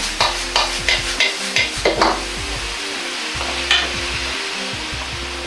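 Ladle striking and scraping a wok about three times a second while food sizzles in it, over quiet background music. The ladle strokes stop about two seconds in, leaving the sizzle, with one last clink near the end.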